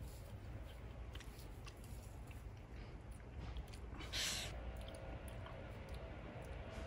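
A man chewing a bite of peach, with small wet mouth clicks throughout and one brief, louder rush of noise about four seconds in.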